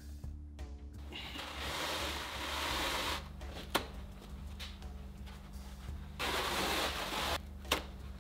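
Blue paper shop towels being pulled off a roll and torn, two stretches of papery rustling and ripping, the first about a second in and the second about six seconds in, with a couple of light knocks. A steady low hum runs underneath.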